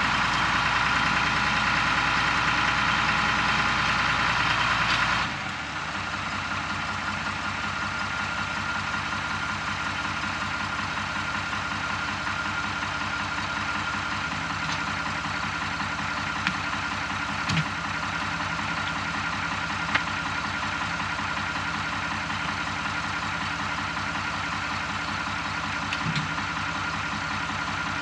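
Farm tractor engine running close by, throttled down to a slower idle about five seconds in and then idling steadily. A few short knocks sound over it later on.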